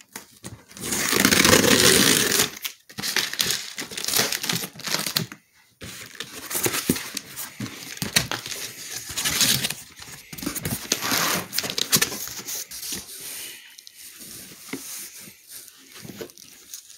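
Tape ripped off a cardboard box and the flaps pulled open, loudest about a second in, then irregular rustling and crinkling as hands dig through cloth and crumpled paper packing.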